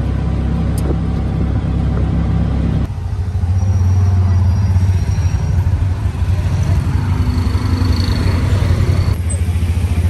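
Auto-rickshaw engine running steadily while driving, heard from inside the passenger cabin as a low drone with traffic around it. The sound jumps abruptly about three seconds in and again near the end.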